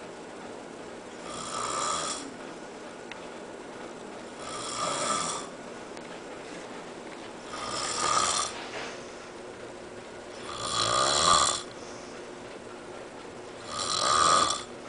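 Snoring: five snores about three seconds apart, each lasting about a second, the one about eleven seconds in the longest and loudest.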